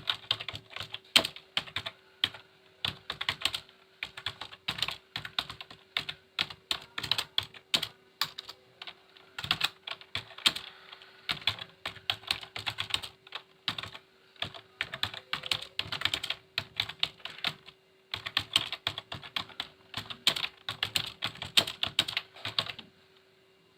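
Computer keyboard being typed on in quick runs of keystrokes broken by short pauses, at about 41 words a minute. A faint steady hum sits beneath the clicking.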